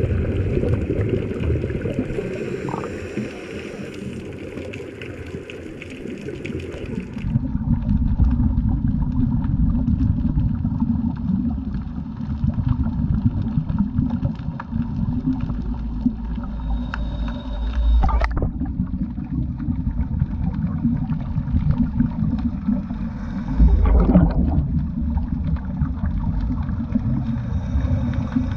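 Muffled underwater noise picked up through a camera housing: a dense low rumble with the bubbling and gurgling of scuba divers' exhaled bubbles. The sound changes abruptly about seven seconds in.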